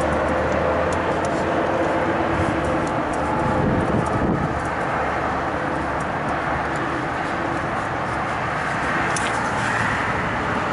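Steady outdoor background noise, a mix of wind and distant machinery or traffic hum, with scattered small clicks from hands working on wiring at the condenser fan motor.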